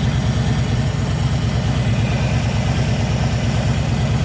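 Harley-Davidson Low Rider S (2021 FXLRS) Milwaukee-Eight 117 V-twin idling steadily, an even low rumble through its exhaust pipes.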